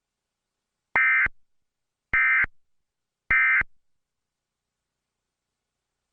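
Emergency Alert System end-of-message data bursts: three identical short electronic warbling bursts, each about a third of a second, a little over a second apart. They mark the end of the alert.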